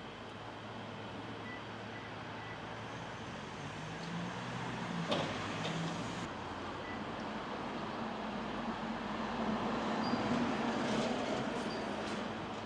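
Traffic noise from a passing motor vehicle, swelling twice as it goes by, with a single sharp click about five seconds in.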